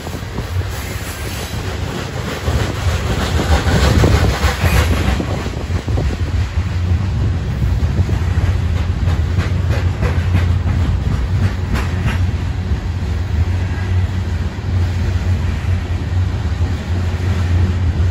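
Loaded coal hopper cars of a freight train rolling past, a steady low rumble with wheels clicking on the rails now and then.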